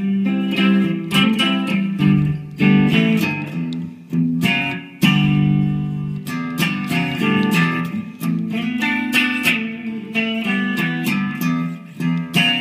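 Clean electric guitar chords strummed on an Epiphone Les Paul Custom, each chord left to ring. The volume is rolled back and the guitar's 50s wiring with a treble bleed keeps the treble in the tone.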